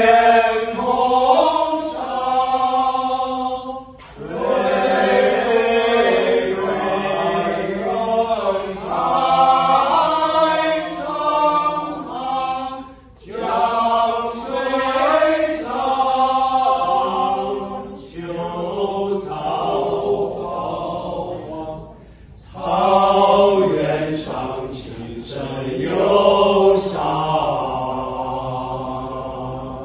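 Small male vocal ensemble singing a slow song unaccompanied in close harmony, in long phrases with brief pauses for breath.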